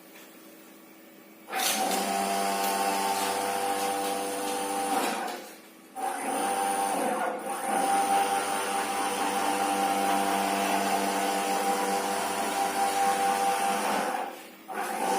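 NEMA 34 stepper motors driving a CNC axis along a rack and pinion, running with a steady whine made of several fixed tones. It starts about a second and a half in, stops briefly after about five seconds, runs again, and breaks off near the end before a short final move.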